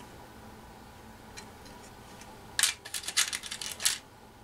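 Small metal washers clicking and clinking against each other and the radio chassis post as they are handled and fitted, in a quick cluster of clicks about two and a half seconds in lasting about a second.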